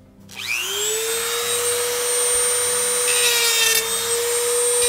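Handheld rotary tool switched on, its motor spinning up quickly to a steady high whine. About three seconds in it grinds briefly on the head of the metal rivet that holds a refrigerator roller in its bracket, a harsh grinding noise over the whine.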